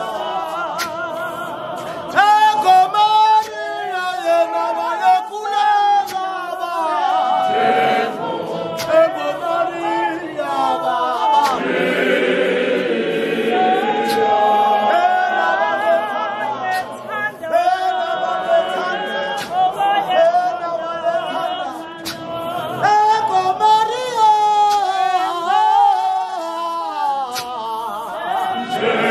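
Large choir of men and women singing a hymn unaccompanied, many voices together.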